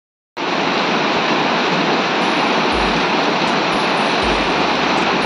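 Heavy rain pouring onto a wet brick-paved yard and its puddles: a steady, dense hiss of water that starts about a third of a second in.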